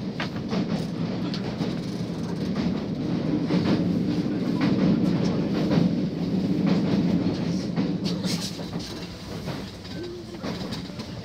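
Inside a moving JR Kabe Line commuter train: the steady low rumble of the carriage running on the rails, with scattered clicks from the track. It grows louder through the middle and eases off near the end.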